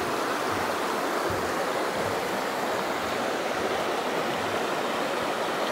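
Shallow rocky creek flowing steadily over stones.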